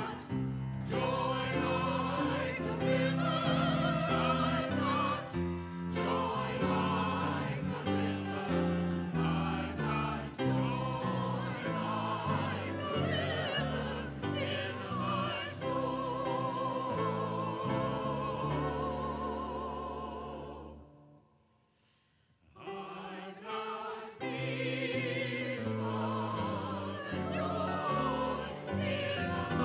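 Church choir singing an anthem in parts, the high voices with a wide vibrato. The music stops for a pause of about two seconds a little past two-thirds of the way through, then the choir comes back in.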